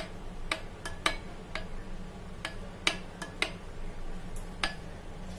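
Metal spoon stirring thick chilled mango custard, clinking against the side of the bowl about ten times at uneven intervals.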